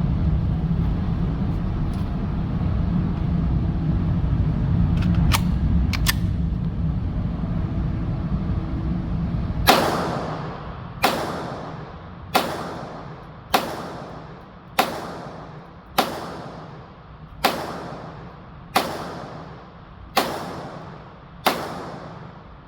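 Glock 44 .22 LR pistol firing ten shots of Aguila Super Extra copper-plated 40-grain rounds, about one every 1.2 seconds, each sharp crack followed by a short echo. For the first ten seconds, before the shooting starts, there is only a steady low rumble and a few faint clicks.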